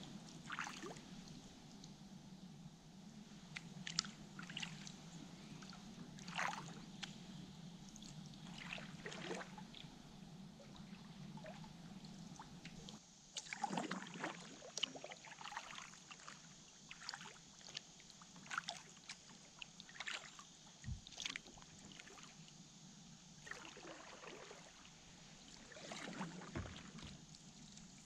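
Kayak paddling: paddle blades dipping and dripping water beside the hull, with irregular small splashes every second or two.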